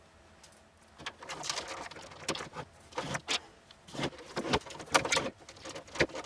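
Irregular clicks, taps and small rattles of a screwdriver and the hard plastic casing of a Tomy Armatron toy robot being handled during disassembly, starting about a second in.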